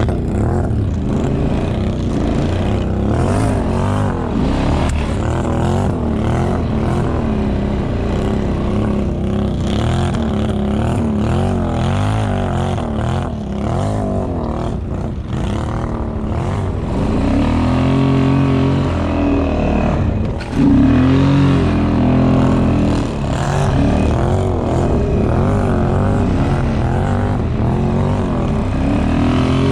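ATV engines running and revving as the quads are ridden through snow, the engine note rising and falling throughout.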